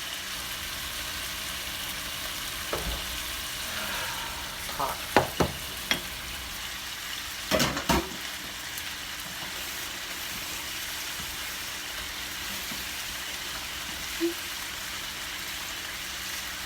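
Chicken frying in a pan on the stove, sizzling steadily, with a few sharp clatters of pot and utensils in the middle.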